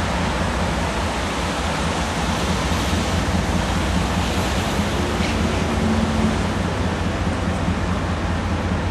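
Steady low rumble of a distant freight train's diesel locomotives approaching, under an even rushing hiss.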